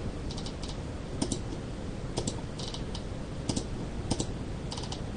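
Typing on a computer keyboard: light, irregular key clicks, some in quick runs of two or three, over faint steady background noise.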